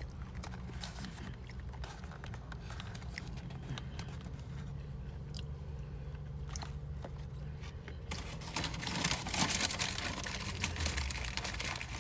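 Eating sounds: chewing with small scattered clicks, then from about eight seconds in a louder, denser crinkling of fast-food packaging, over a steady low hum.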